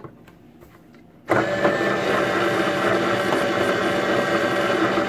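Small electric motor of a toy egg-decorating spinner switching on about a second in and running steadily as it turns an egg.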